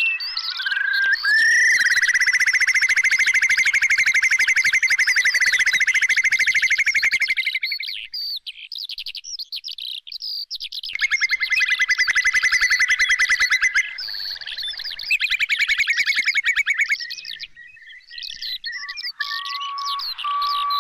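Curlew calling in fast rippling trills: a long trill lasting about six seconds, then two shorter ones, over a scatter of higher chirps. Near the end a steady high whistle-like tone takes over.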